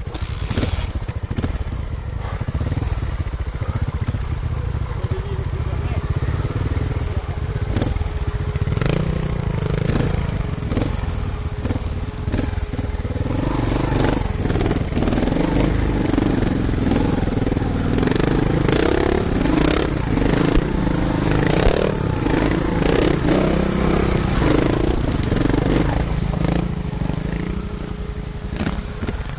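Trials motorcycle engine running at low revs as the bike picks its way over rough ground, with knocks and clatter from the wheels and suspension hitting stones. The engine is louder and works harder from about halfway through.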